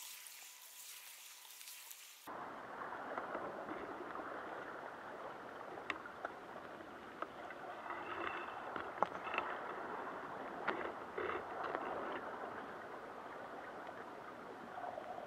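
Underwater sound picked up by a camera in a housing on a crab wheel. A fine crackling hiss runs for the first two seconds, then cuts abruptly to a muffled wash of moving water with scattered sharp clicks and ticks.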